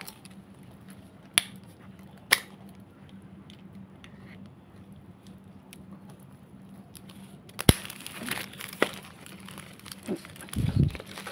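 Plastic wrapping of an air-layered branch's rooting ball crinkling as it is handled, with a few sharp snaps. The loudest snap comes about three quarters of the way through.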